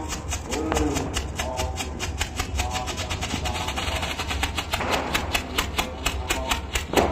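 Ground fountain firework burning, spraying sparks with a fast, dense crackle. A louder crack comes near the end.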